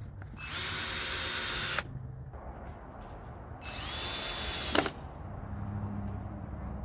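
Cordless drill driving screws through metal pipe strap into a treated 2x4. It makes two runs of about a second and a half each, each spinning up with a rising whine, and the second ends with a sharp click.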